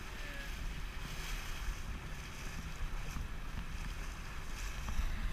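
Rigid inflatable boat under way, its engine running steadily with water rushing along the hull and wind buffeting the microphone.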